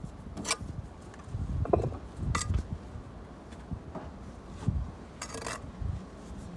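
Bricklaying trowel scraping and clinking against mortar and brick in a handful of short, irregular strokes, the longest near the end, over a low rumble of wind on the microphone.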